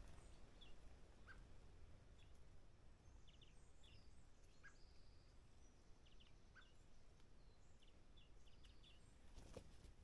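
Near silence: faint outdoor background with a low rumble, and scattered faint, short bird chirps every second or so.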